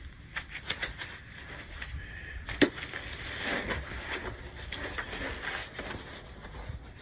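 Packaging being handled while a large car-audio amplifier is unpacked: irregular rustling and clicks, with one sharp knock about two and a half seconds in.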